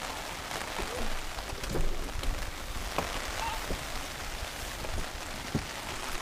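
Steady heavy rain pattering on an open umbrella held over the microphone, with a few scattered sharper drop hits and light knocks.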